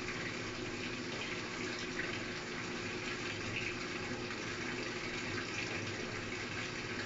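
Frigidaire laundry center washer (SFLG1011/SFLG2022) filling in diagnostic test mode: both water inlet valves, hot and cold, are open and water rushes steadily into the tub, with a faint hum under it. This is the partial fill before the wash test starts.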